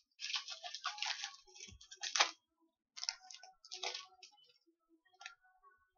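Trading-card pack wrapper being torn open and crinkled, then cards being slid and flicked through by hand, in short crisp rustles that thin out after about four seconds.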